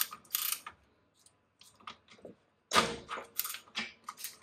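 A short rustle, then a cluster of light clicks and knocks from a ratchet being fitted and worked on the rear differential's drain plug.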